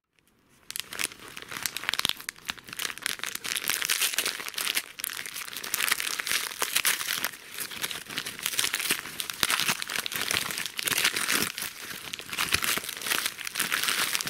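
Christmas wrapping paper being torn open and crumpled by hand: dense, continuous crinkling and tearing that starts about a second in.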